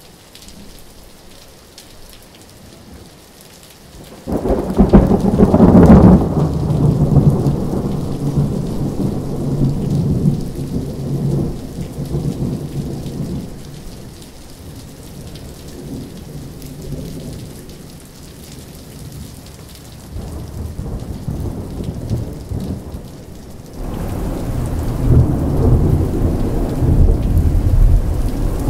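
Thunderstorm: steady rain, then a sudden loud thunderclap about four seconds in that rolls and rumbles away over several seconds. A second long rumble of thunder starts near the end.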